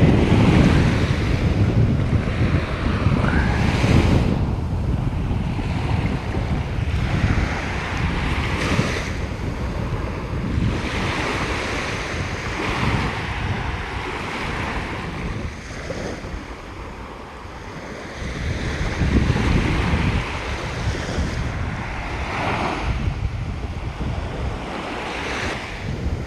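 Ocean waves breaking and washing up the beach in repeated surges every few seconds, with wind buffeting the microphone.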